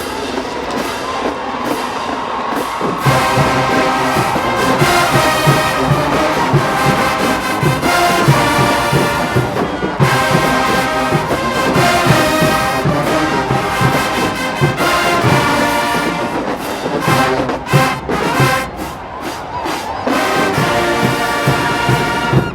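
HBCU marching band brass section playing loudly, with the drums coming in with a heavy beat about three seconds in. Near the end the band plays a run of short, clipped hits with sharp breaks between them.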